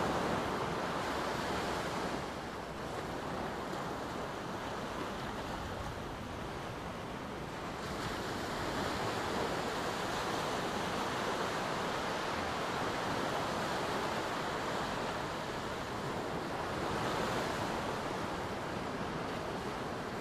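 Small ocean waves breaking and washing up on a sandy beach, a continuous wash of surf that swells about eight seconds in and again around seventeen seconds.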